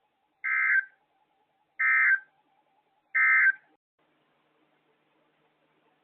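EAS end-of-message data signal: three short bursts of warbling digital tone about a second apart, marking the end of the severe thunderstorm warning broadcast.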